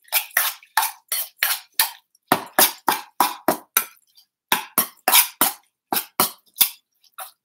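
Metal spoon clinking and scraping against a stainless steel bowl while stirring a mashed tofu mixture, about three strokes a second with a brief pause a little past halfway.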